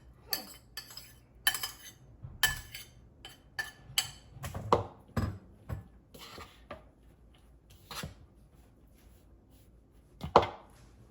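Kitchen utensils clinking and knocking against dishes in a run of irregular knocks and clicks, with one loud knock near the end.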